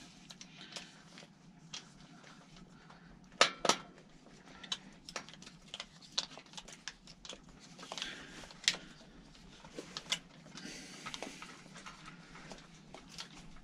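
Scattered light metal clicks and clinks of a bike pannier rack's stays, bolts and washers being handled and fitted at the rear of the frame. The loudest is a sharp double knock about three and a half seconds in.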